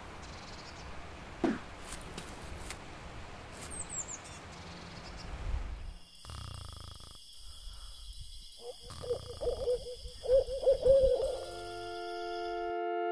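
Soft forest ambience with a dull thud and a few short high chirps, then a wavering, pitched call of several notes in a row. Near the end a sustained synthesizer chord swells steadily louder.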